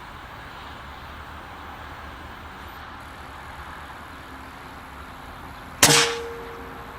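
Air Arms S410 bullpup pre-charged pneumatic air rifle firing a single shot about six seconds in: one sharp crack with a short ringing tail, over steady outdoor background noise.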